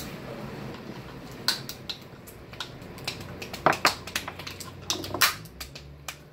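Crab shells being cracked and broken apart by hand: a string of irregular sharp cracks and clicks, the loudest a little past the middle.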